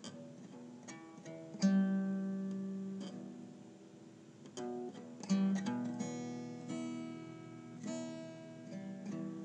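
Acoustic guitar playing a slow introduction to a song: plucked notes and chords, each left to ring out and fade before the next, the loudest about a second and a half in.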